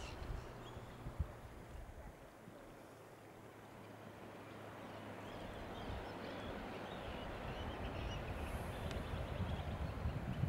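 Outdoor coastal ambience: a steady rushing noise that slowly grows louder, with a few faint bird calls near the start and again in the middle.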